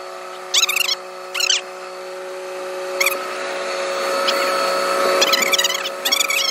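A cat meowing several times in short, high calls over a steady mechanical hum.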